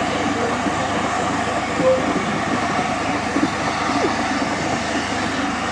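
Aveling & Porter geared steam locomotive running slowly over yard pointwork: a steady mechanical running sound, with a few brief squeaks.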